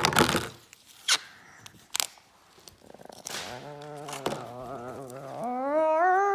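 Hard plastic toy parts knocked and handled, a few sharp clacks in the first two seconds. Then a voice makes a low drawn-out sound, followed by a louder, higher note that rises and is held steady for about two seconds, without words.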